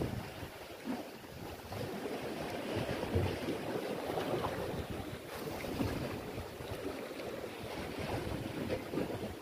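Wind gusting on the microphone over the steady wash of sea waves.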